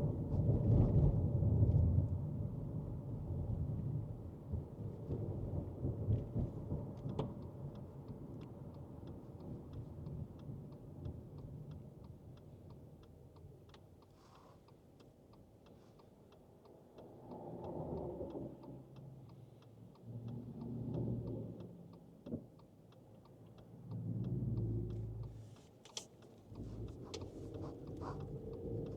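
Cabin noise inside a 2024 Subaru Forester Sport driving on a rough road: a low rumble of tyres and engine that swells and fades, loudest at the start, with faint light ticks over it.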